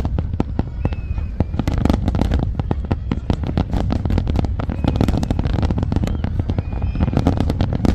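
Large fireworks display: a rapid, continuous barrage of bangs and crackles over a steady low rumble.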